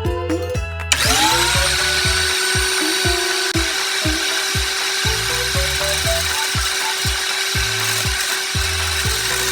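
Drill driver motor spinning up about a second in, then running at a steady speed, over background music with a steady beat.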